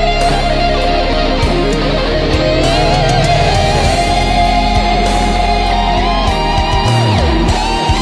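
Instrumental background music led by a guitar, its melody gliding and bending in pitch over steady sustained low tones.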